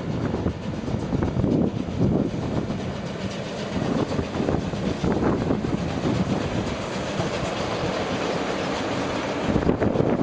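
Two class 01.5 steam locomotives, the oil-fired 01 509 leading the coal-fired 01 1533, double-heading a passenger train past under steam: steam exhaust and wheels running on the rails. The sound changes and swells again near the end as the second locomotive draws near.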